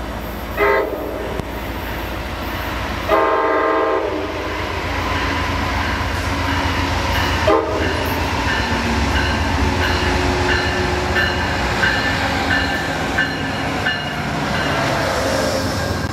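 Amtrak Downeaster passenger train pulling into the station behind a GE P42DC diesel locomotive. The horn sounds a short note, then a longer blast about three seconds in, then another short note near the middle. After that the diesel engine's low rumble grows as the locomotive passes close, with a bell ringing in a steady repeated pattern for several seconds.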